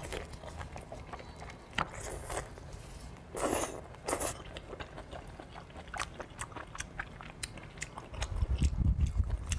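Close-miked eating of a braised pork trotter: wet, sticky biting, tearing and chewing, with scattered clicks and a few louder smacks. Near the end, louder low thudding comes in as a gloved hand works right by the microphone.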